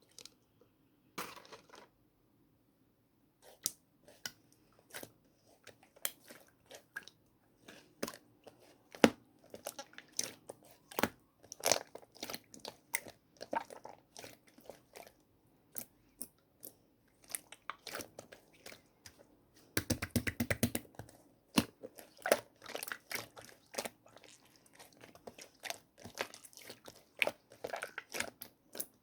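Yellow slime with crunchy toppings being squished and kneaded by hand, giving irregular sticky crackles, pops and crunches, with a dense run of crackling about 20 seconds in.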